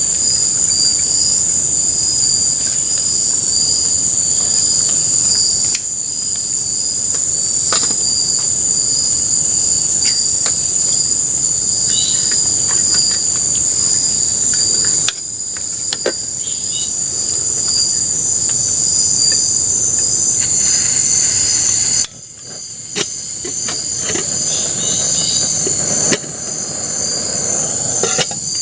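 Chorus of tropical forest insects, a steady high-pitched buzzing in two bands, with scattered short clicks and knocks. The sound drops and returns abruptly several times.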